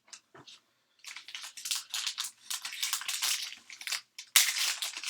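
Crinkling and tearing of a foil trading-card pack wrapper as it is handled and opened: a dense, rapid crackle, loudest about four seconds in.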